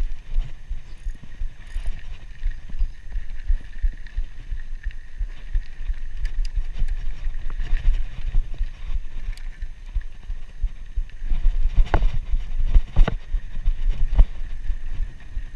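Scott Scale hardtail mountain bike ridden over a dirt pump track: a steady low rumble of knobby tyres on dirt, with wind buffeting the chest-mounted microphone. A few sharp knocks and rattles from the bike come about three-quarters of the way through.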